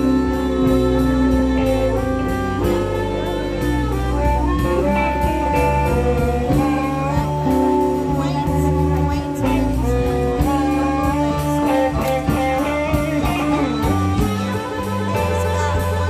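Live blues band playing an instrumental passage: electric guitar, bass and drums keep a steady beat under a lead melody of held notes.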